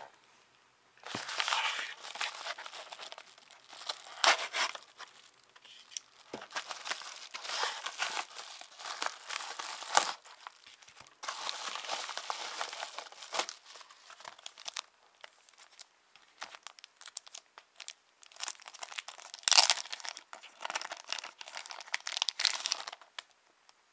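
A mailed package being torn open and unwrapped by hand: paper and packing material crinkling and tearing in irregular bursts with short pauses, one sharp rip near the end.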